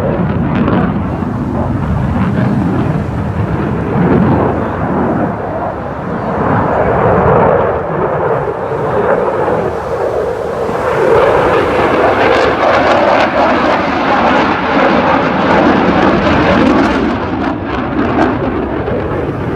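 Eurofighter Typhoon fighter jet's twin EJ200 turbofan engines, a loud continuous jet rumble that grows brighter and harsher from about halfway through as the aircraft manoeuvres.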